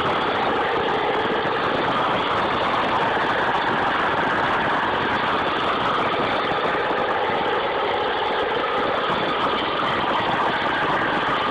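Kirovets K-700-series tractor's heavy diesel engine running steadily under hard load while the tractor wades through a river, its stack pouring black smoke.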